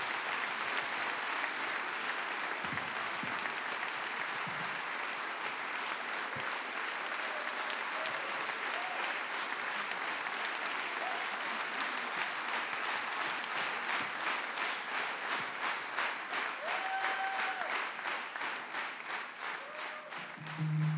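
Concert audience applauding, the scattered clapping turning into a steady rhythmic clap in unison, about three claps a second, through the second half.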